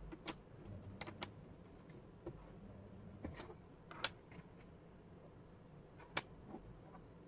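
Wooden jigsaw puzzle pieces clicking and tapping against each other and the tabletop as they are picked up and fitted in. Irregular light clicks, the sharpest about four seconds in.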